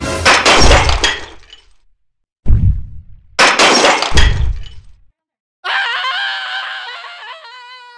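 Crash and breaking-glass sound effects, four hits in a row, each dying away, then a held pitched tone with overtones that slides down in pitch near the end.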